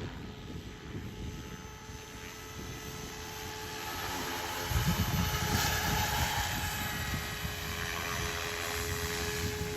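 Electric SAB Goblin 700 RC helicopter in flight: a steady motor and rotor whine over rotor noise. It grows louder about halfway through, with a low rumble.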